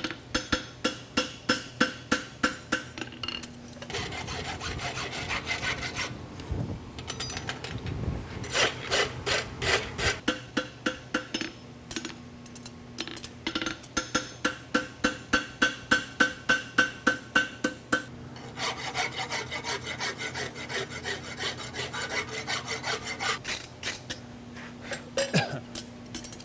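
Hand hammer striking a red-hot steel horseshoe on an anvil in runs of quick, even blows, about three or four a second, with the anvil ringing under the harder strikes and lighter taps between runs. It is the sound of forging the shoe: bringing a branch around over the horn and flattening the heel caulk and wedge.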